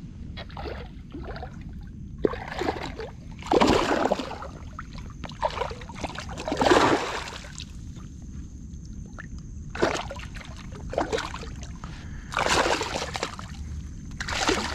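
A hooked peacock bass splashing and thrashing at the water's surface on ultralight tackle, in a run of short splashes, loudest about four and seven seconds in. A faint steady high tone comes in about halfway through.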